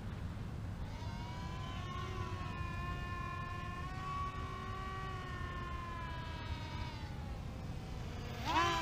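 Small electric motors and propellers of a radio-controlled foam C-17 Globemaster III model whining in flight, the pitch rising as it comes in, holding, then slowly sinking as it moves away. Near the end it passes close with a sudden louder rise and fall in pitch. A steady low rumble lies underneath.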